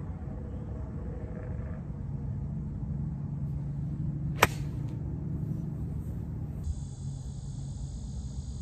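A golf club strikes the ball once, a single sharp click about four and a half seconds in, over a steady low rumble. Near the end a steady high insect hum, like crickets, sets in.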